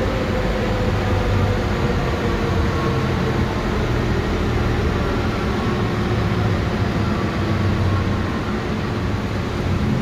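Airport people-mover tram running, heard from inside the car: a steady low rumble with a faint whine, getting slightly quieter near the end.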